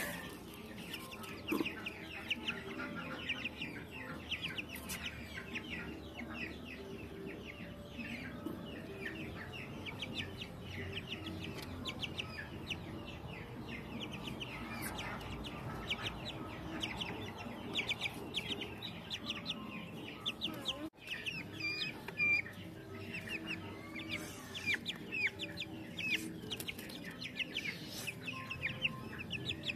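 Young Ayam Cemani chickens cheeping over and over, many short high calls a second.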